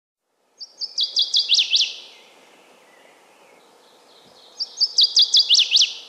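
Northern waterthrush singing two songs, one starting about half a second in and the next about four and a half seconds in. Each is a quick run of high repeated notes that speeds up and ends in a few lower, down-slurred notes.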